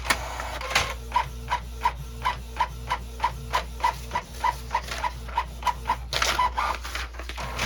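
Canon Pixma inkjet printer printing with its cover off: the mechanism runs in a quick even rhythm of short chirps, about three a second, over a steady hum, with a louder whir about six seconds in.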